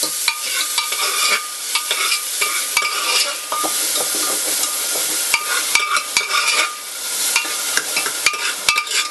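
Chopped tomatoes sizzling and frying in hot oil in a pressure cooker, with a steady hiss, while a steel spoon stirs them, scraping and clicking against the pot with brief ringing tones.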